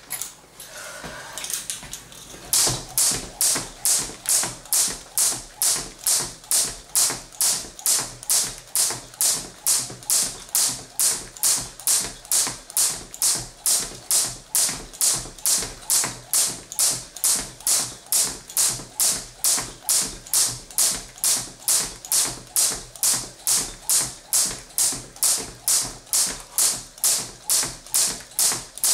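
Crossrope jump rope (the blue "stamina" rope) skipping at a steady pace: the rope and the jumper's landings strike the floor in an even rhythm of about two a second, starting about two and a half seconds in.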